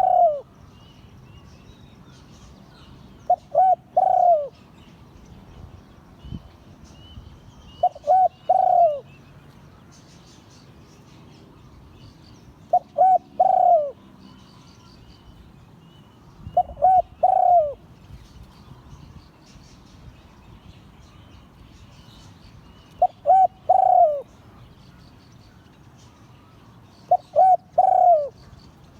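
Spotted dove cooing: a phrase of two short notes followed by a longer, falling coo, repeated every four to six seconds. Faint high chirps of other small birds are in the background.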